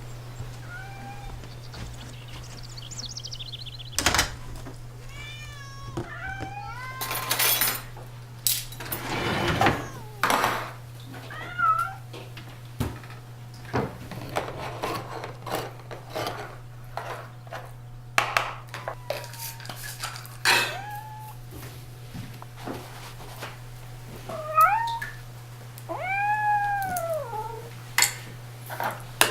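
Cats meowing, about eight separate calls with a long, drawn-out meow near the end. Between the calls come clicks, knocks and short clattering noises, over a steady low hum.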